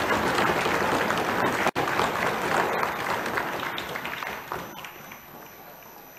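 Legislators in the assembly chamber applauding: a dense patter of many hands clapping that dies away in the second half.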